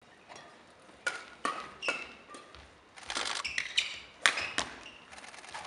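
Badminton rackets striking a shuttlecock several times, sharp hits with shoe squeaks on the court floor between them; the loudest hit comes a little past the middle.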